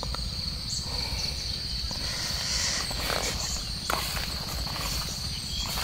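Footsteps and rustling through dry grass stubble, a few short crunches about three and four seconds in, over a steady high insect trill and a low steady rumble.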